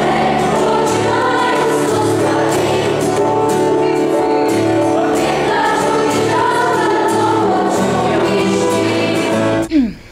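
Children's and youth choir singing in unison with electric keyboard accompaniment. It cuts off abruptly near the end.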